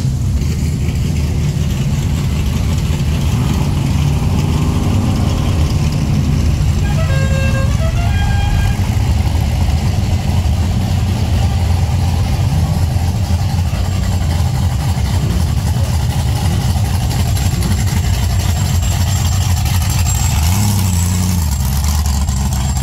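Loud, steady low rumble of cruising car engines rolling past at low speed. About seven seconds in, a short horn sounds a few stepped notes, and an engine revs briefly near the end.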